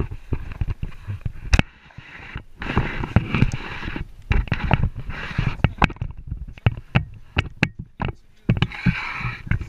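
Handling noise from a GoPro on a handheld pole being moved about: irregular sharp clicks and knocks, with stretches of rushing, rubbing noise.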